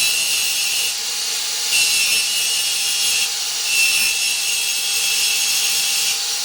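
MIG welder laying weld beads on steel: a hissing, crackling arc in four runs of one to two and a half seconds each, stopping and starting abruptly with short pauses between.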